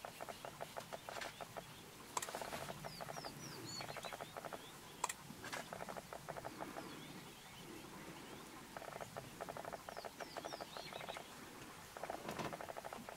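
African wild dogs twittering: faint bursts of rapid, high chittering mixed with short bird-like chirps, coming several times. A single sharp click about five seconds in.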